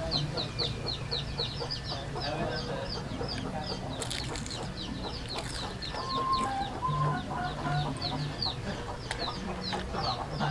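Chickens clucking in the background, with short, high, falling chirps repeating several times a second throughout.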